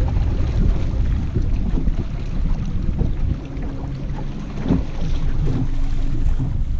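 Wind buffeting the microphone, with choppy water lapping against a bass boat's hull. A low steady hum comes in about halfway through.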